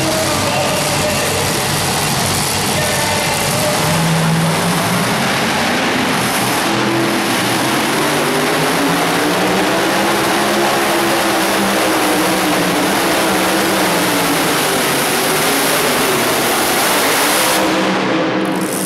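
Supercharged engine of a super modified two-wheel-drive Chevrolet pickup running loud at full throttle under the load of a pulling sled, its pitch climbing and then falling during the pull and easing off just before the end.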